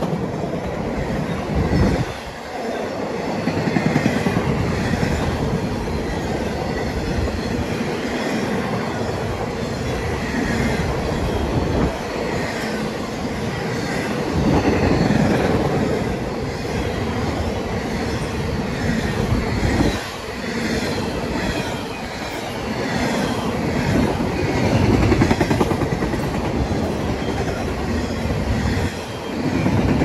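CSX intermodal freight train's double-stack well cars and trailer-carrying flatcars rolling past close by. Their wheels on the rails make a steady rumble that swells and dips briefly every several seconds.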